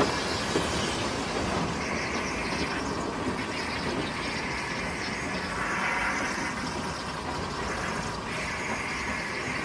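Narrow-gauge steam locomotive Welsh Pony running slowly along the line, heard from its tender: a steady rumble of engine and wheels on the rails, with a higher hiss that swells and fades every few seconds.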